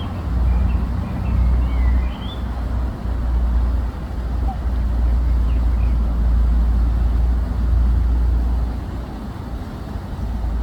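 Wind buffeting the microphone: a heavy low rumble that comes and goes in gusts. A few faint high chirps sound in the first two seconds.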